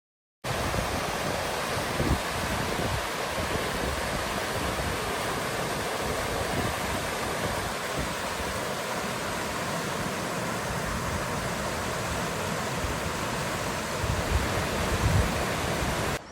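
Steady rush of fast-flowing mountain creek water, cutting in suddenly about half a second in and running evenly, with some uneven low rumbling underneath.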